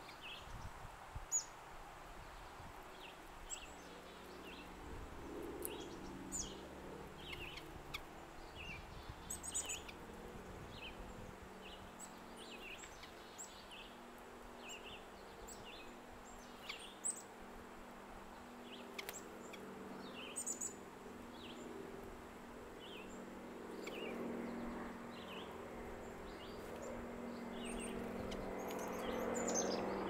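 Small songbirds giving short, scattered chirps and calls over a faint steady background. A low hum swells near the end.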